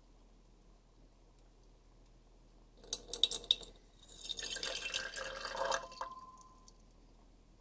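Liquid poured in a thin stream into a glass beaker onto a small heap of metal relay pieces. A few clicks and splashes come about three seconds in, then a steady pour runs from about four to six seconds in and stops with a brief ring.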